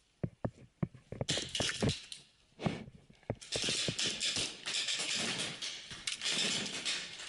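Paintball gunfire: a quick, irregular series of sharp pops over the first three seconds or so, from paintball markers firing and balls hitting the bunkers. About halfway through it gives way to a continuous hissy rustling as the player moves.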